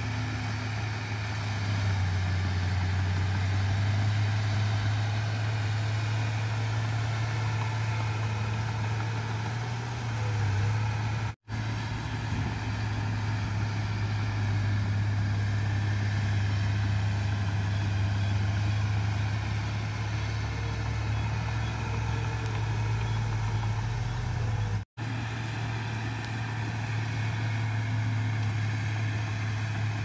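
Komatsu crawler bulldozer's diesel engine running steadily under load as it pushes soil, a deep, even drone. The sound drops out for an instant twice, about a third of the way in and near the end.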